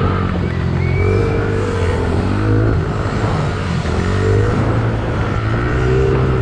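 50cc youth motocross bike engine being ridden hard, revving up and down, its pitch rising and falling about four times as the throttle is opened and closed.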